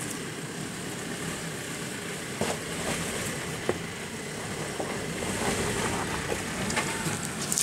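Land Rover four-wheel drive crawling slowly over rock, its engine running low and steady, with a few scattered knocks and crunches of tyres on stone and sharper clicks near the end.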